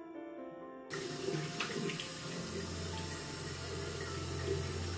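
A bathroom tap turns on suddenly about a second in and runs steadily into the sink, with a few splashes as water is scooped up to rinse a soapy face. Soft piano music plays just before the tap starts.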